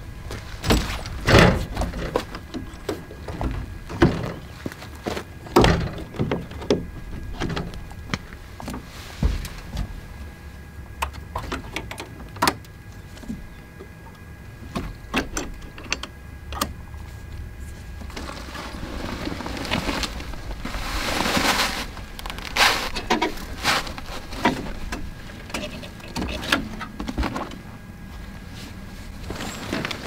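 Rooftop tent on a pickup's canopy being opened by hand: a series of knocks, clunks and clicks from its frame and fittings, with a longer rustle about two-thirds of the way in as the tent fabric unfolds.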